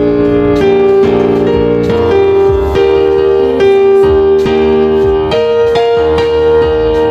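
Instrumental background music: held keyboard-like notes that change every second or so over a steady beat.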